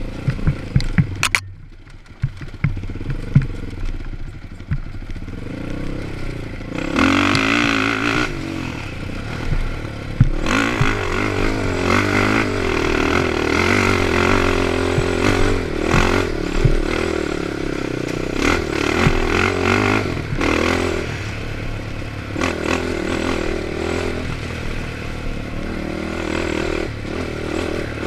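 Honda TRX450ER ATV's single-cylinder four-stroke engine racing on a rough dirt trail, its pitch rising and falling with the throttle. It is quieter off the throttle for a few seconds near the start, then pulls hard from about seven seconds in. Sharp knocks and clatter come from the machine bouncing over the ground.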